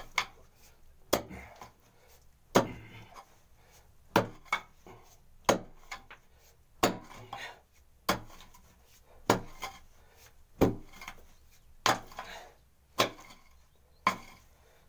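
Short-handled pick striking hard, dry packed earth in a hand-dug well shaft, one sharp blow about every second and a quarter, a dozen or so in a row.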